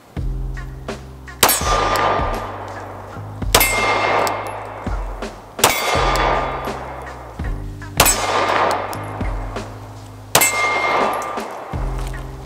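Five shots about two seconds apart, each followed by the clang and fading ring of a steel target being hit, over background music.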